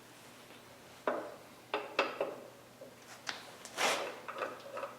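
Steel V-block and metal miter-gauge parts being set in place on a disc sander that is switched off: a handful of sharp clicks and clunks at uneven intervals, with a longer clatter about four seconds in.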